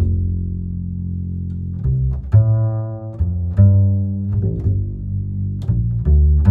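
Music with a deep, prominent bass line whose notes change every second or so, with sharp percussive hits over it.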